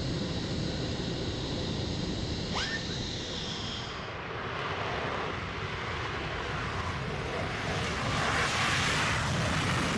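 F-15 jet engines (Pratt & Whitney F100 afterburning turbofans) running as steady jet noise with a high whine. After about four seconds the sound changes to the fuller rush of an F-15E on its takeoff run with afterburners engaged, growing louder near the end.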